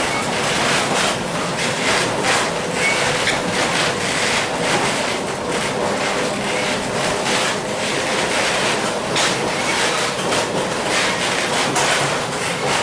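A 1906 John Stephenson-built streetcar running along its track, heard from inside the car: a steady rumble of wheels on rail with irregular clicks and rattles, and a faint steady hum beneath.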